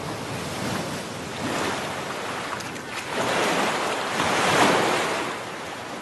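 Ocean surf: waves washing in as a steady rush that swells to its loudest about four and a half seconds in, then eases off.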